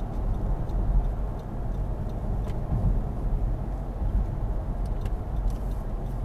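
Steady road and engine noise inside a car cruising at about 50 mph: a low, even rumble of tyres and engine heard through the cabin.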